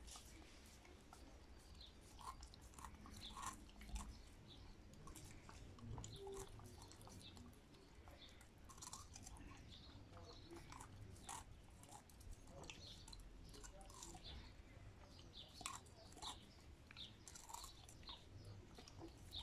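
A dog licking and biting at a frozen ice lolly: faint, irregular wet smacks and crunches.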